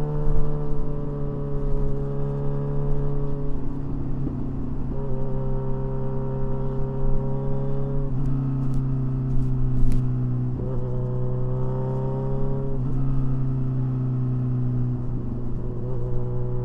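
Kawasaki Ninja 1000SX inline-four running through a baffle-less aftermarket exhaust under way, its pitch shifting in steps every two to three seconds as the throttle and gears change.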